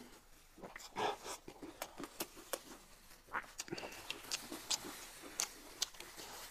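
Close-miked eating sounds: wet chewing and lip-smacking, with irregular sticky clicks several times a second, as braised pork knuckle is pulled apart by gloved hands and eaten.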